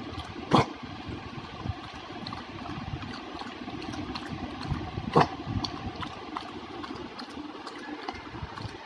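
A dog gives a short, low "oof" twice, the two sounds about four and a half seconds apart, over a steady background hum.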